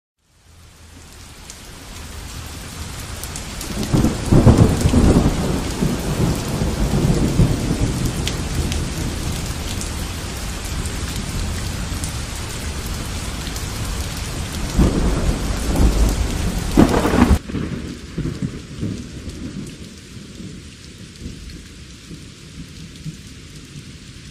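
Heavy rain falling, fading in over the first couple of seconds, with two rolls of thunder, one about four seconds in and one about fifteen seconds in. About seventeen seconds in it cuts suddenly to a quieter, muffled rain heard from inside a room.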